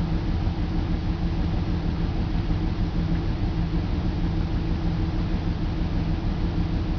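BMW 325i's M54 straight-six engine idling cold with a quick, uneven pulse. It runs rough from the cold-start ignition misfire that the owner's scanner logs on cylinders 3 and 5.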